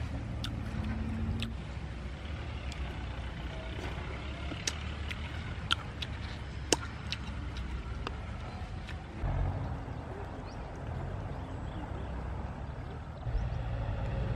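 A steady low rumble that swells a little about nine seconds in and again near the end, with a few scattered sharp clicks and ticks in the middle.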